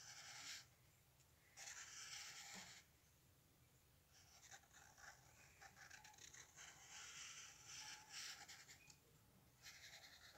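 Faint scratching of a black felt-tip marker drawn across paper in strokes: short runs near the start and about two seconds in, a longer run through the middle, and another near the end.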